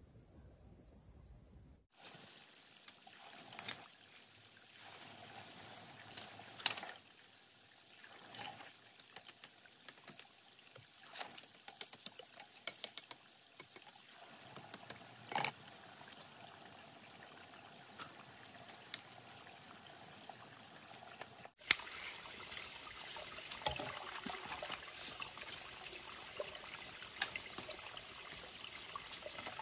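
Light clicks and knocks scattered over a faint hum, then, from about two-thirds of the way in, water trickling and splashing steadily under a high, steady insect drone.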